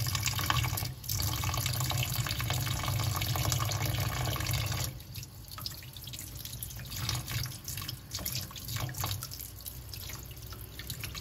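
Kitchen tap water running into a stainless steel sink as razor clams are rinsed clean of grit. About five seconds in, the flow drops off, leaving softer, uneven splashing and drips.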